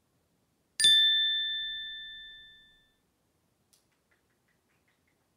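A single bright bell-like ding, struck once about a second in. Two clear tones ring together and fade away over about two seconds.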